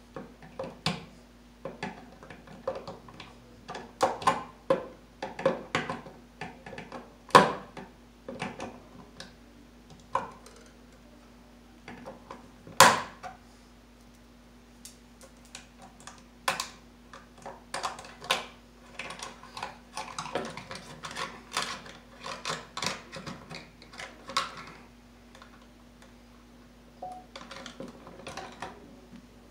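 Hands working on electrical wiring at a plastic ceiling box: irregular clicks, taps and rustles of cable and small tools, with two sharper snaps along the way. A faint steady hum sits underneath throughout.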